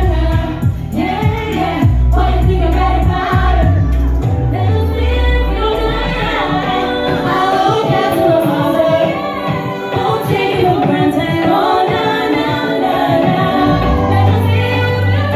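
Female vocal group singing live into microphones over music with a heavy bass line, several voices at once. The bass drops out about five seconds in, leaving mainly the voices, and comes back near the end.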